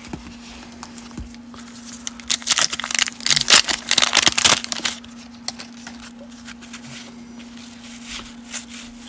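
Wax paper wrapper of a 1989 Fleer baseball card pack being torn open and crinkled, loudest from about two to five seconds in, followed by quieter rustling as the cards are handled.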